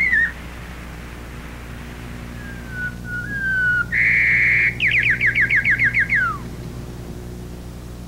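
White-crowned sparrow song: a clear rising whistle, then a buzzy held note, then a fast trill of about nine descending slurs that ends in a falling sweep.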